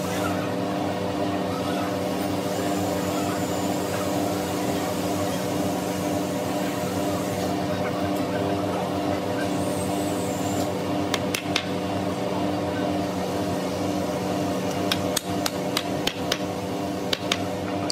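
Hammer blows on a wooden post, driving it into its joint in a bed-frame rail: a few strikes about two-thirds of the way in, then a quicker run of blows near the end. A steady mechanical hum from workshop machinery runs underneath throughout.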